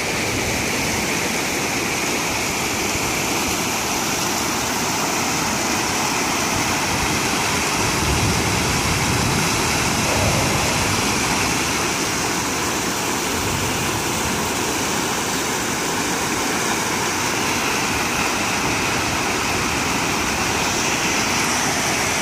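Creek in flash flood: fast, muddy floodwater rushing and churning in standing waves, a steady loud rush of water noise.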